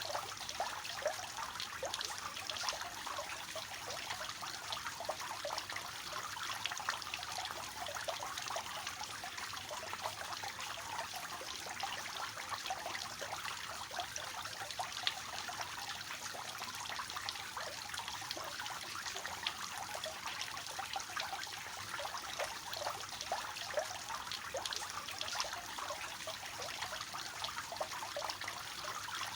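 Water falling and splashing steadily from the tiers of a three-tiered garden fountain into the basins below, a constant dense trickle and patter.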